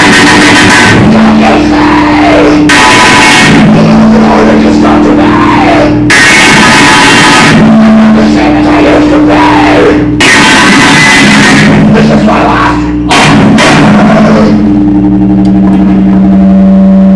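Loud, heavily distorted live noise music: blasts of harsh noise that cut in and out abruptly every couple of seconds, over a held low drone that steps between two notes, with repeated pitch sweeps rising and falling.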